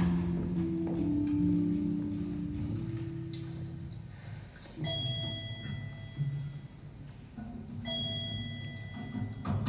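Instrumental stage-musical underscore: sustained low chords fade away, then ringing high mallet-struck notes sound three times, each left to ring.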